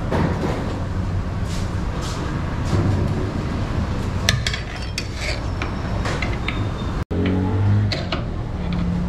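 Metal utensils clinking against an aluminium cooking pot and dishes: a cluster of sharp clicks about halfway through and a few more near the end, over a steady low rumble.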